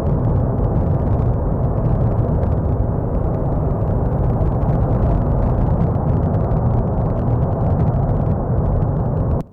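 Steady, loud low rumble of the Cumbre Vieja volcano erupting, cutting off suddenly near the end.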